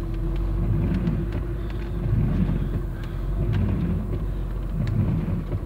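Car engine running and tyres on a wet road, heard from inside the cabin: a steady low rumble with an even hum over it.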